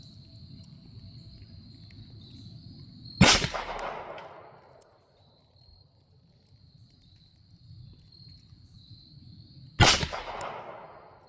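Two shots from a Taurus TX22 Competition .22 LR pistol, about six and a half seconds apart, each sharp crack trailing off in a short echo. Crickets keep up a steady high chirring behind them.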